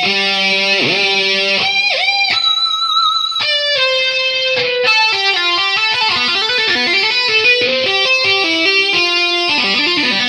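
Background music: a guitar lead line with pitch bends, a held note about three seconds in, then quick runs of notes.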